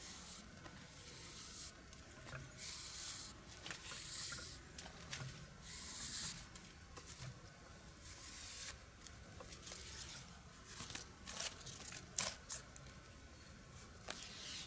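Thin cord rasping as it is pulled through a loop and drawn around a tree trunk: a series of faint swishes about a second long each, then a few sharp ticks later on.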